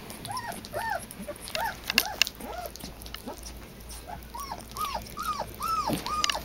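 Labrador puppy whimpering: about a dozen short, high, squeaky cries, each rising and falling in pitch, with a few sharp clicks about two seconds in.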